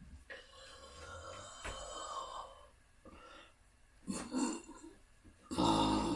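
A person burping into a balloon: a short burst about four seconds in, then a louder, deep, drawn-out burp starting near the end.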